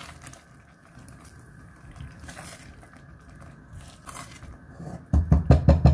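A spoon stirring thick chicken gravy with cream and grated cheese in a pan, soft scraping and squishing. Near the end comes a quick run of loud knocks of the spoon against the pan.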